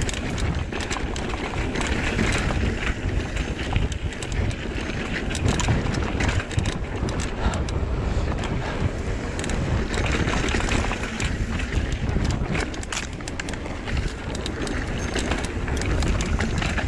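Wind buffeting the microphone and tyres rolling over dirt singletrack while riding a Trek Fuel EX 7 mountain bike downhill at speed, with frequent clicks and rattles from the bike over rough ground.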